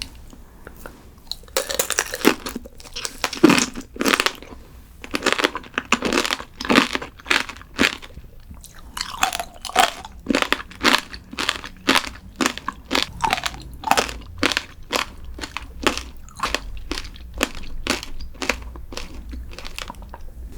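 A person chewing crunchy food close to the microphone: loud, uneven crunches at first, then steady rhythmic chewing crunches about one and a half times a second.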